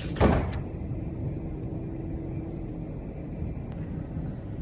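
Cruise ship's horn sounding as a faint, steady low tone over the ship's rumble, fading out about three seconds in.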